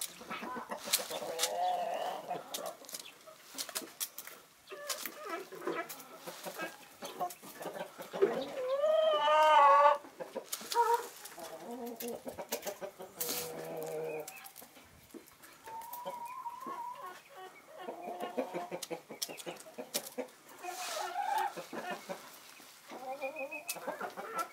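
Backyard chickens clucking on and off, with scattered small clicks, and one loud drawn-out call with a wavering pitch lasting about two seconds, about eight seconds in.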